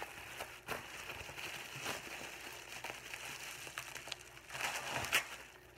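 Bubble wrap crinkling and rustling as it is pulled off a small device by hand, with scattered sharp crackles and a louder stretch about five seconds in.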